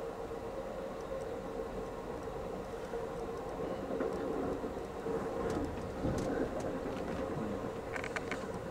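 Amtrak Coast Starlight passenger train running at speed, heard from inside the car: a steady rumble of the wheels on the rails with a steady hum, and a few light clicks near the end.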